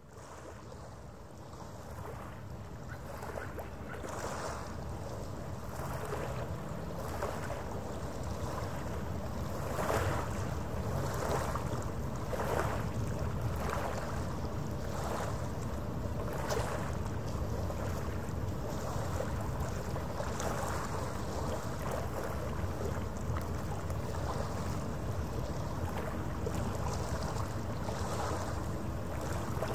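Harbour water washing against the shore in small waves every second or two, over a steady low rumble. The sound fades in over the first few seconds.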